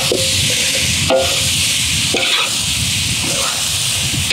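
Whole red chilies sizzling in a large metal wok while a metal spatula stirs them, with a steady frying hiss and short scrapes of the spatula against the pan about once a second.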